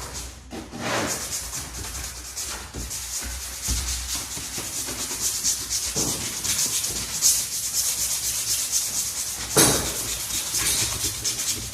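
Repeated rubbing and scraping strokes against a hard surface, a dense scratchy hiss with a few stronger sweeps.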